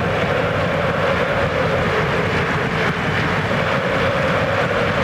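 Large football stadium crowd keeping up a steady, loud din.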